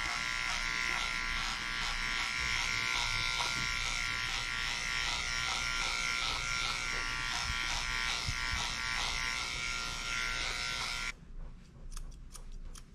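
Electric dog grooming clippers running steadily as they trim a dog's coat, switching off abruptly about eleven seconds in. A few quick snips of grooming scissors follow.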